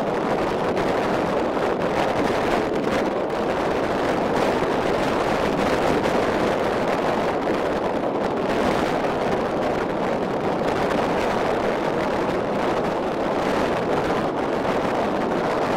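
Steady rush of wind buffeting the microphone on the open deck of a car ferry underway, mixed with the ship's engine and water noise. It stays even throughout.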